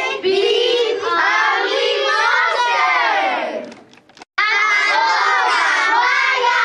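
A group of children shouting loudly in chorus, broken by a brief silent gap about four seconds in before the shouting starts again.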